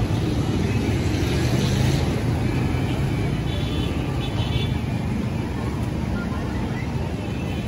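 Steady street traffic noise: a continuous low rumble of cars and engines on a busy road.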